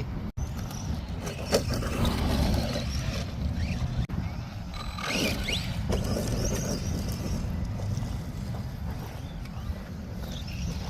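ARRMA Vortex electric radio-controlled car driving, its motor whining up in short rising bursts over a steady low rumble. The sound cuts out for an instant twice.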